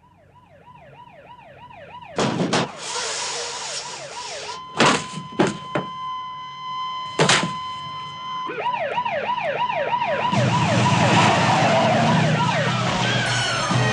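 Police siren wailing in fast rising-and-falling sweeps and growing louder, broken by several sharp bangs and a stretch where it holds one steady tone. A loud, noisy din builds over it near the end.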